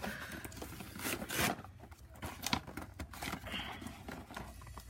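Cardboard and plastic toy packaging being handled and pulled apart: irregular clicks, taps and rustling.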